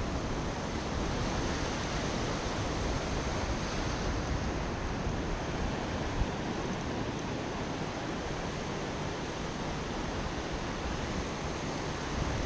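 Ocean surf breaking and washing up a sandy beach in a steady hiss, with wind gusting on the microphone.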